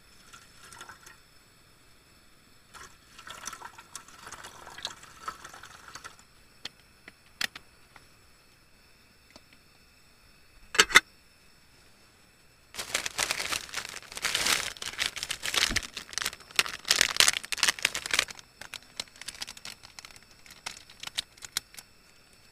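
Water pouring into a metal camping pot for a few seconds, then a sharp clack about eleven seconds in. After that comes about five seconds of loud crackling, rustling noise.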